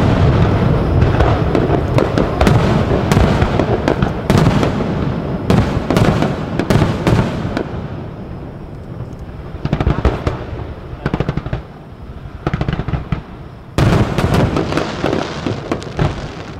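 Japanese aerial firework shells bursting close overhead in rapid volleys of booms and sharp cracks. The barrage thins out about halfway through, with scattered reports, then a heavy new volley breaks out near the end and begins to fade.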